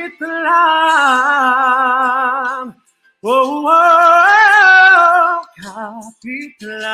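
A male singer's voice holding long sung notes with vibrato, two sustained phrases, the second rising and falling in pitch, then a few short notes near the end.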